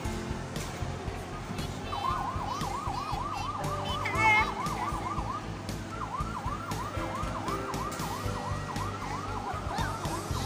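Electronic siren sound effect of a coin-operated fire-truck kiddie ride, a fast yelping wail rising and falling about four times a second, in two runs with a short break in the middle. A brief, louder high-pitched sound stands out a little past four seconds in.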